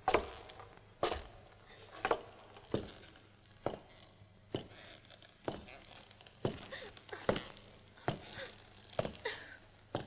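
Slow, deliberate cowboy-boot footsteps on a wooden floor, about one step a second, each heel strike with a light metallic clink of spurs.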